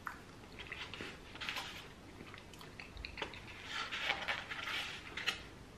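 A person chewing and biting food close to the microphone, chicken and baked potato, with scattered short clicks. The eating noise is busiest and loudest about four to five seconds in.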